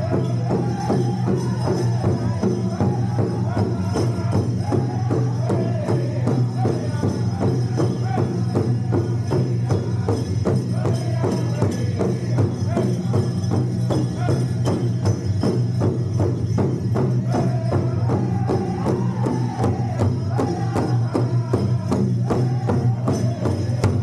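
Powwow drum group singing together over a steady beat struck in unison on a large drum.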